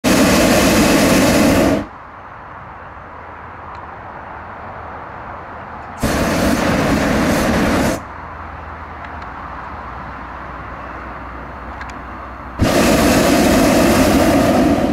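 Hot-air balloon propane burner test-fired in three blasts of about two seconds each, one at the start, one about six seconds in and one near the end, each starting and stopping sharply, with a much fainter steady noise between blasts.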